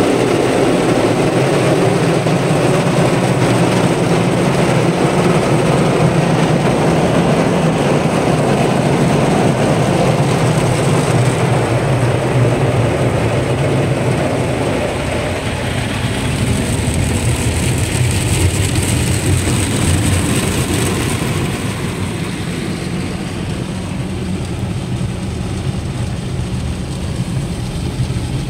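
Automatic car wash running, heard from inside the car: water spraying over the windscreen and spinning cloth brushes against the body over a steady low machinery drone. It eases off somewhat about halfway through.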